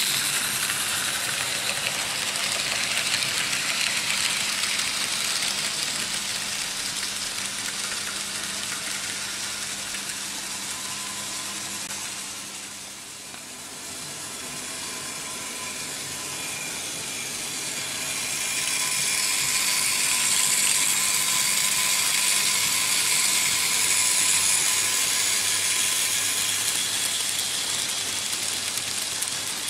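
Märklin H0 model trains running on stamped-metal M-track, a steady rattling clatter of wheels over the rail joints and small motors running. The clatter fades to a low about halfway through, then builds again as a train comes closer, with a faint motor whine in the second half.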